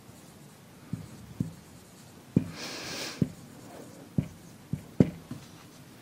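Whiteboard marker writing on a whiteboard: a run of short, light taps as the tip meets the board, with one longer scratchy stroke about halfway through.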